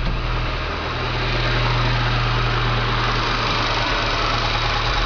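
A 1995 Volkswagen Pointer GLI 1.8 engine idling steadily, heard close up. There is no more pulley noise: the water pump pulley that caused it has been tack-welded.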